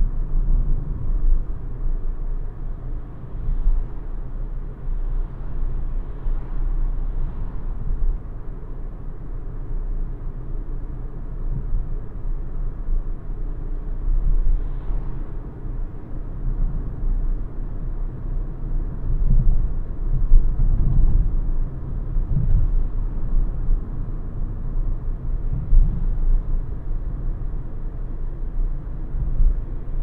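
Renault ZOE R110 electric car driving through town, heard inside the cabin: a low road and tyre rumble with no engine noise, rising and falling with the road surface and louder for a few seconds in the middle.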